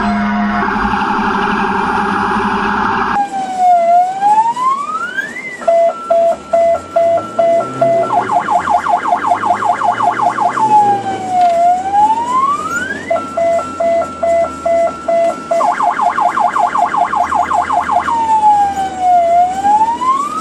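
Electronic ambulance siren cycling through a repeating pattern: a pitch that dips and then sweeps up, a two-tone hi-lo alternation, then a fast warble, the whole cycle coming round about every seven and a half seconds. It cuts in suddenly about three seconds in, after a steady vehicle hum.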